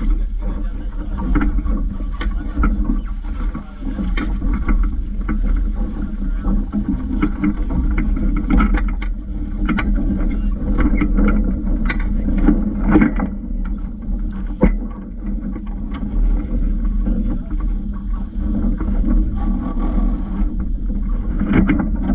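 Steady rush of wind and water aboard a small Vaucluse Junior sailing dinghy under way, with scattered knocks and clicks from the hull and fittings. There is one sharper knock about two-thirds of the way through.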